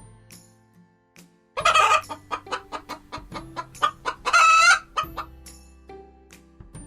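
Hen cackling: a quick run of short clucks, about five a second, ending in one longer drawn-out squawk.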